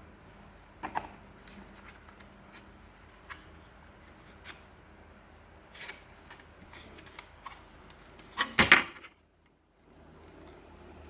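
Small clicks and handling noises of objects being moved about, with a louder burst of clattering and rustling about eight and a half seconds in, then a moment of dead silence.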